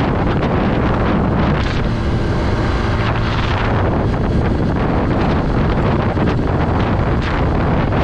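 Wind rushing and buffeting over the microphone of a motorcycle at road speed, with the Honda XR150L's single-cylinder engine running steadily underneath.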